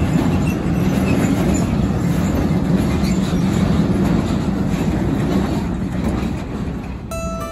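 A long train of covered freight wagons rolling past: a steady rumble of wheels on rail with faint wheel squeals, easing off as the last wagon goes by near the end. Soft plucked music starts just before the end.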